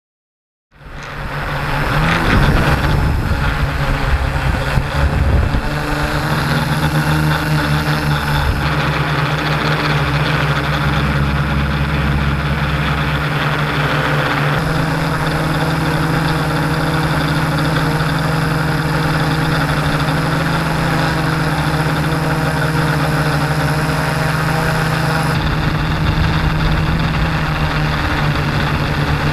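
Multirotor drone's electric motors and propellers humming steadily, starting about a second in, the pitch shifting slightly twice as the drone changes speed.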